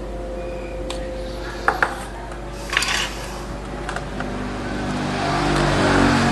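Light clicks and clatters of small hard parts and tools being handled over a steady electrical hum. Near the end a louder engine-like sound swells up.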